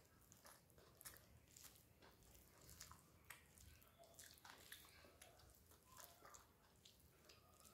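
Faint close-up eating sounds: chewing, with irregular soft clicks and squishes as fingers mash rice into vegetable vorta on a steel plate.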